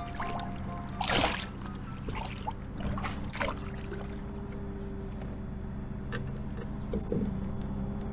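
Soft background music over water sounds from a kayak on a creek. About a second in, the loudest sound: a short splashy rush of water. A few small knocks and clicks follow.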